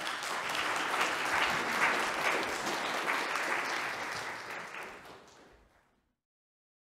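Audience applauding, many hands clapping together; the clapping thins out after about five seconds and stops, giving way to silence near the end.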